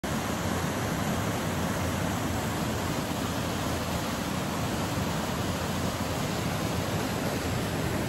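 Steady rushing of a partly frozen waterfall pouring down a rocky cascade into a pool, an even, unbroken wash of falling water.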